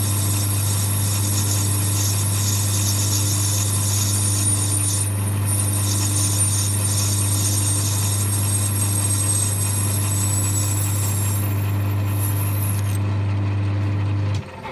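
A machine running with a steady low hum and a high whine that slowly falls in pitch, then cutting off abruptly near the end.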